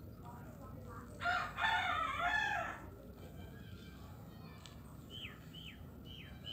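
A rooster crows once, starting about a second in and lasting about a second and a half. Near the end a small bird gives a run of short falling chirps.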